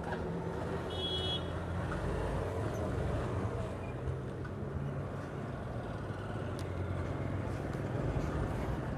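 Small Yamaha two-wheeler engine running as the rider pulls away and rides along a town street, a steady low hum with road traffic around it. A few short high beeps about a second in.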